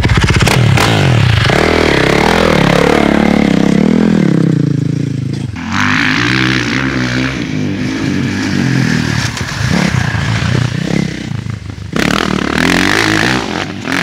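Motocross dirt bike engine revving hard and loud for about the first five seconds, then easing off with the pitch rising and falling as the rider goes off and on the throttle, and revving up again near the end.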